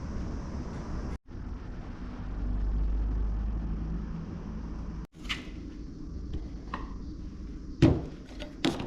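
A low steady rumble, then a few sharp knocks and clicks from handling things, the loudest about eight seconds in. Twice the sound cuts out for an instant.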